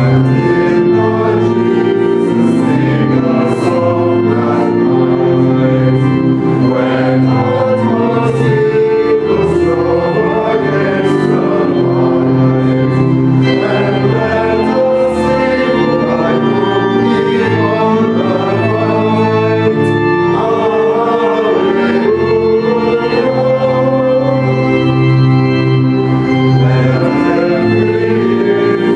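Organ playing hymn music in held chords, with a congregation singing along.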